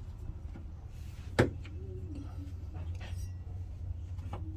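Rubber bump stop being forced into its metal bracket by hand and tool: faint rubbing and scraping with one sharp knock about a second and a half in, over a low steady hum.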